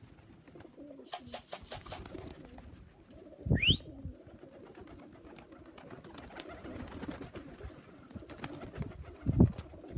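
Pigeons cooing in and around the loft, with a quick run of clicks about a second in, a short rising squeak with a low thump a few seconds in, and another low bump near the end.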